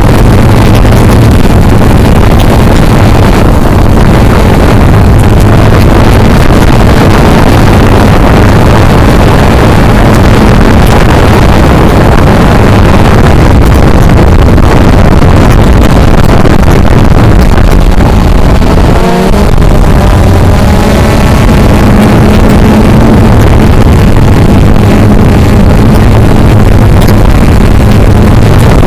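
Cheerson CX-20 quadcopter's motors and propellers buzzing steadily in flight, heard loud and close through the aircraft's own camera microphone, with a low hum under a rushing wash of prop and wind noise.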